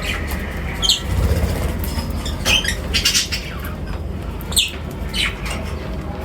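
Small birds giving short, quick falling chirps, about one every second, mixed with wing flutters and sharp clicks, over a steady low rumble.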